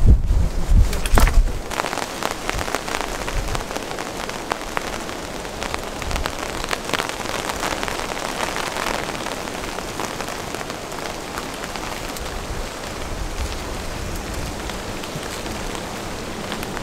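Rain falling steadily, with many small drop hits ticking throughout. A low rumble, like wind on the microphone, sits under it in the first second or so.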